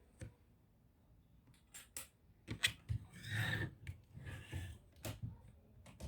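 Scattered clicks and taps of small plastic and metal laptop parts being handled, with two short scraping sounds near the middle.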